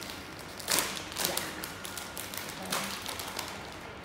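Plastic crisp bag being pulled open: a few sharp crinkles and crackles of the packet, the loudest about a second in.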